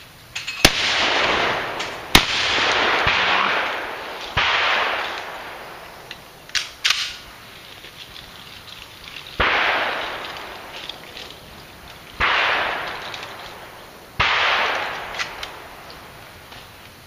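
Break-action shotgun firing two loud shots about a second and a half apart, each trailing off in a long rolling echo. Four fainter shots with the same long echo follow several seconds apart, with a couple of short sharp clicks in between.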